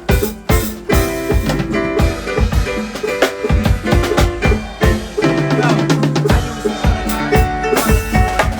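Loud recorded music with a heavy drum-kit beat, kick and snare, and sustained bass and melody notes, played through a sound system.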